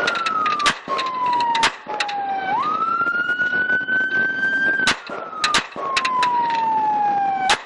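Police car siren wailing, its pitch climbing slowly, dropping, and sliding down before sweeping back up, about once every five seconds. Sharp clicks or knocks come through over it, clustered about five to six seconds in.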